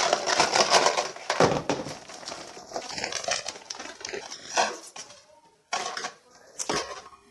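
Dense rustling and crackling, thinning out after about two seconds into scattered sharp clicks and knocks.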